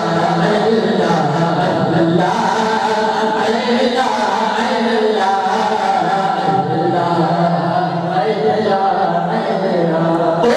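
A man singing a devotional Urdu naat solo into a microphone, without instruments, in long held, ornamented notes.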